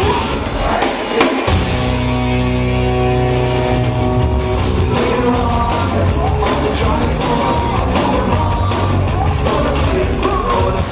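Live rock concert music played loud in a large hall. The heavy bass drops out briefly and comes back in about a second and a half in, with a singing voice over the music.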